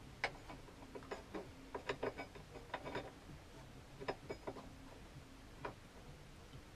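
Irregular light metallic clicks and clinks of a Kawasaki ZZR1400's roller drive chain being handled and fed around its sprockets. The clicks come thickly for the first few seconds, then a few more at intervals.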